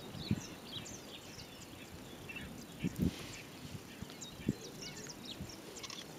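Open-country ambience of scattered short bird chirps and calls, with a few dull low thumps: one about a third of a second in, the loudest around three seconds in, another about four and a half seconds in.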